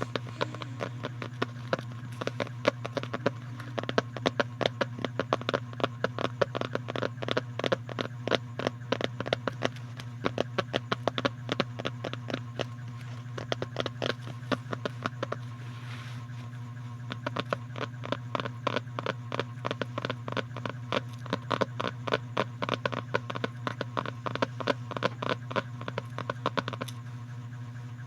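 Rapid, irregular ASMR tapping and scratching close to the microphone, several clicks a second with brief lulls, over a steady low hum.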